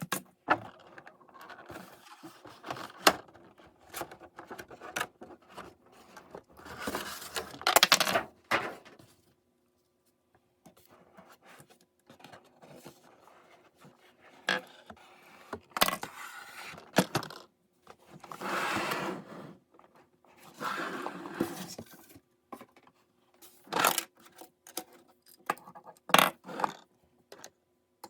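Hands unboxing small items: irregular scraping and rustling of packaging, broken by sharp clicks and taps, with a faint steady hum underneath.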